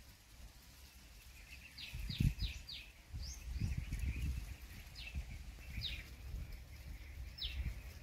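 Purple sunbird calling: short, sharp, high chirps that slide downward, first a quick run of four, then single notes spaced a second or so apart. A low rumbling noise runs underneath from about two seconds in.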